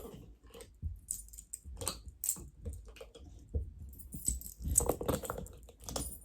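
A dog moving about and searching: collar tags jingling and clicking irregularly, with soft low thumps, busiest in the second half.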